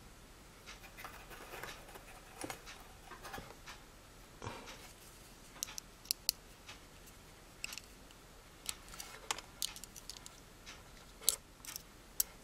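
Faint, scattered small metal clicks and light scraping: small pliers bending and fitting a thermal fuse's wire lead at the metal heater bracket of a food dehydrator, with a few sharper clicks now and then.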